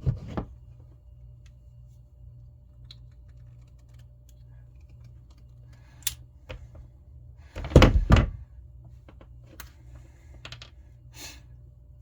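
Clicks and knocks of hand tools working a cable as its jacket is stripped back, with the loudest cluster of knocks about eight seconds in, over a faint steady hum.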